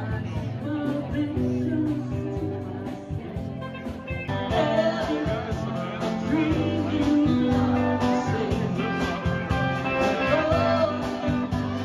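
Live band playing a song with guitar and a singer; about four seconds in the sound turns fuller and brighter.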